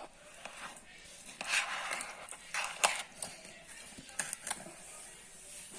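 Cutlery lightly clinking and scraping in a dish, a scattering of short clicks and brief scrapes.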